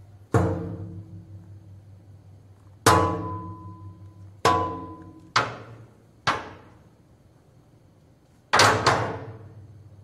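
Hollow blows on the steel body of a dumpster, each with a metallic ring that fades away. There are six strikes at uneven intervals, and the last and loudest comes near the end as a quick double hit.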